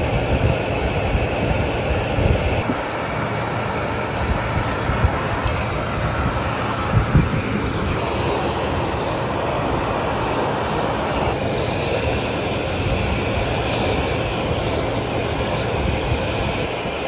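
Steady drone of the tractor and air drill running, with a few brief knocks about seven seconds in.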